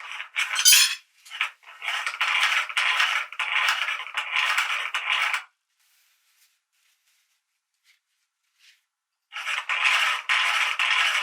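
Meat grinder working toilet paper through: a dry metallic scraping and rasping that runs for about four seconds, stops dead, and starts again near the end.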